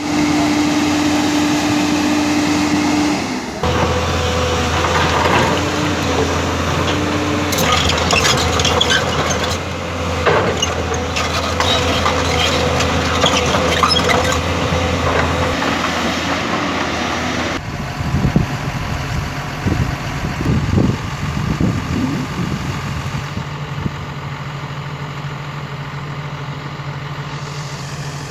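JCB backhoe loader and excavator diesel engines running, in several short clips joined by abrupt cuts, with scattered clanks and rattles in the middle stretch.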